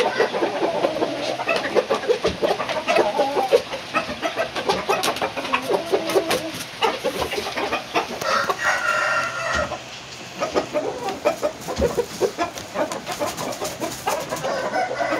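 Roosters clucking, with one crow lasting about a second around nine seconds in, over many short sharp clicks and scuffs.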